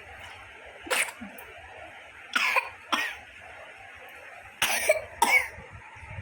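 A toddler coughing about five times in short, separate coughs.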